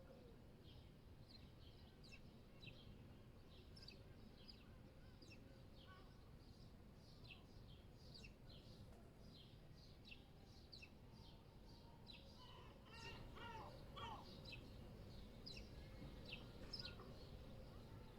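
Faint small birds chirping in short, repeated high notes over a steady low city rumble. About two-thirds of the way through, a louder, lower call from a larger bird rings out for a couple of seconds.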